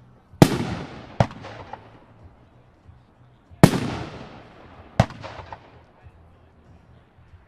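Flashing Fireworks 'Kentucky Waterfall' aerial cake firing. Two loud shell bursts come about three seconds apart. Each is followed a second or so later by a smaller bang and a fading crackle.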